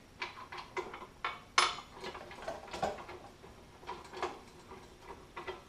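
Irregular metallic clicks and knocks from a drill press's table clamp being loosened and the table handled, with one louder clank about a second and a half in.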